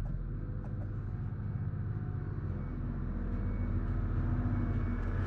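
Propane delivery truck's engine running as it drives slowly into the yard, a steady low drone that grows gradually louder as the truck comes closer, heard through the shop window.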